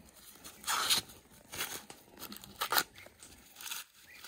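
Green husks being torn off ears of fresh corn by hand: several short rips, the loudest about a second in.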